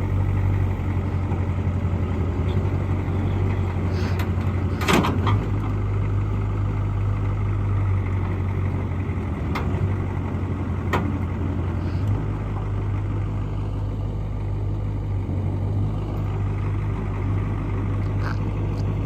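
A motor vehicle's engine running steadily with a low hum, with a few sharp clicks along the way.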